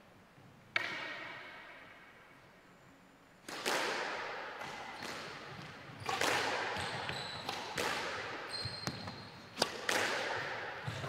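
Squash rally in a glass-backed court: the rubber ball is hit by rackets and smacks off the walls and floor, each hit a sharp crack with a ringing echo. One hit comes under a second in, then from about three and a half seconds the hits come steadily, one every half second to second, with a few brief high squeaks of shoes on the wooden floor.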